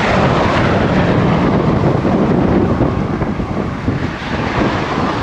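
Strong wind buffeting the microphone: loud, dense, steady wind noise.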